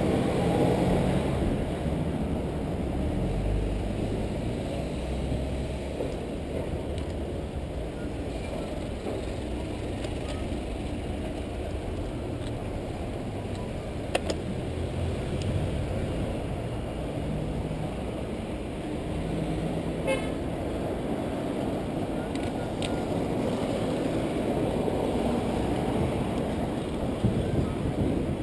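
Steady wind rumble on a handlebar-mounted camera's microphone, with tyre and road noise from a bicycle riding among car traffic. There are a couple of short clicks along the way.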